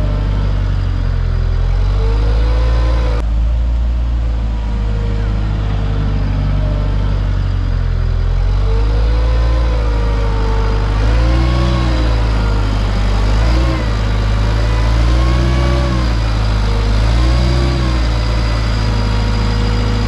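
Heavy construction-vehicle engine running loud and steady, with its pitch rising and falling as it revs up and down several times, most often in the second half.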